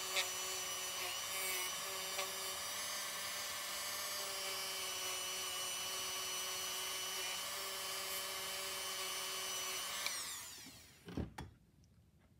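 Dremel rotary tool running at steady high speed, its bit scrubbing surface rust off the pole pieces of a toy-train motor armature. About ten seconds in it is switched off and winds down, falling in pitch, followed by a few light knocks.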